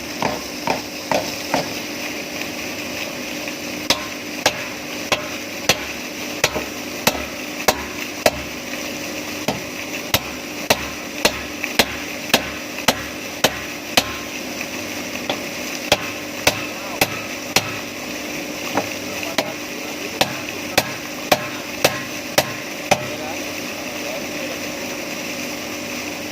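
Repeated sharp hammer blows, roughly one to two a second, stopping near the end, during work on a pump's float, over a steady machinery hum.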